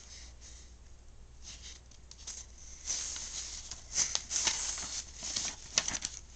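Paper rustling and handling as a picture book's pages are turned: a run of irregular rustles with a few sharp clicks, getting louder a second or two in.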